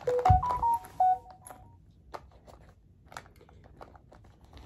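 A quick run of electronic beeps at changing pitches, stepping up and down, in the first second and a half. After that come light, scattered clicks and rustles of items being handled in a clear plastic zippered pouch.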